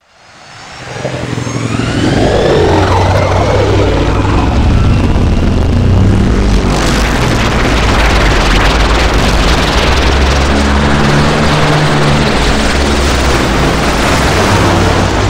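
Film sound effect of the Bat, Batman's flying vehicle: a designed aircraft engine sound that swells in over about two seconds with rising whines, then holds as a loud, steady rumble with a rushing hiss.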